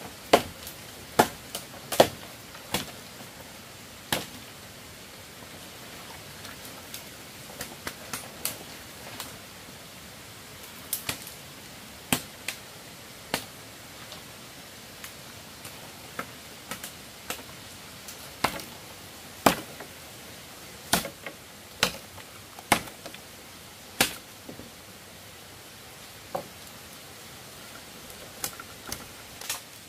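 A blade chopping on wood: sharp single strikes at an uneven pace, some in quick pairs, with pauses of a few seconds between clusters.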